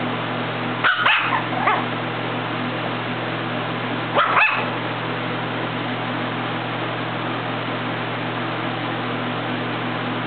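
Small long-haired puppy giving short, high-pitched yipping barks while playing: a few about a second in and two more about four seconds in, over a steady low background hum.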